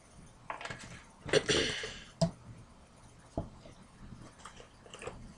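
Kitchen handling sounds as the last of a bottle of cooking oil is measured out: a short rush of noise about a second and a half in, then a sharp click and a light knock, with faint ticks near the end.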